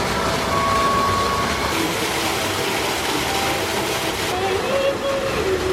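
Steady outdoor crowd noise of a busy theme park, with faint voices rising in the second half and a few faint held tones.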